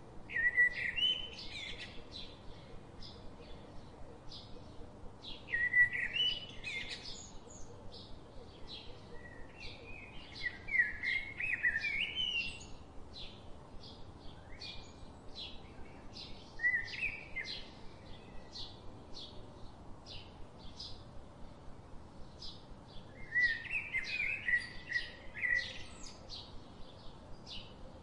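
Birdsong: a steady series of short, high chirps a couple of times a second, broken every few seconds by louder bursts of warbling song.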